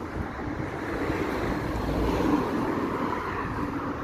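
Wind buffeting the microphone: a steady, low rumbling noise that swells a little about two seconds in.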